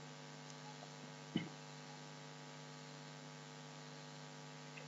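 Steady electrical hum in the recording during a pause in the talk, with one brief knock about a second and a half in.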